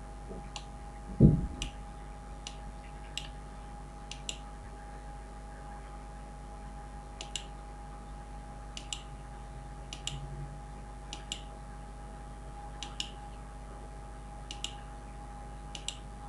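Computer mouse clicking now and then, sharp single clicks, about one every second or so, over a faint steady hum. One dull low thump about a second in.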